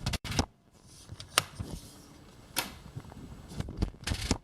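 A few separate sharp clicks and knocks, about a second apart, from hands working hard hardware, over faint room tone.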